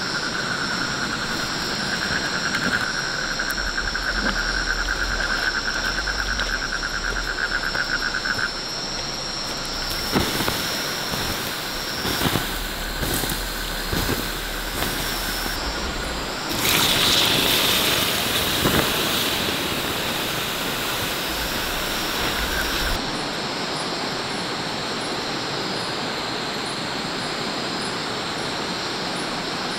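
Forest ambience: insects trilling in a fast pulsing chirr over a constant rushing like running water. There are several sharp clicks or knocks near the middle, and a louder rush for several seconds after them.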